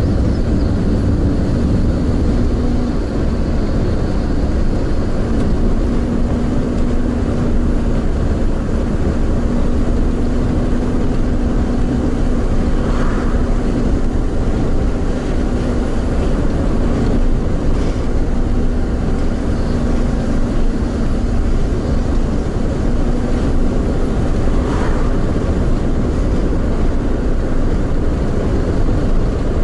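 A car driving on the road: steady low road and tyre rumble with a faint steady hum.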